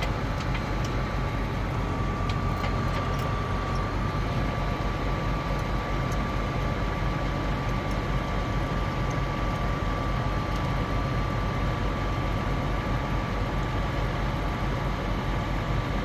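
Tractor-driven silage machinery running steadily: a constant engine note with a rapid low pulsing and a steady whine over it.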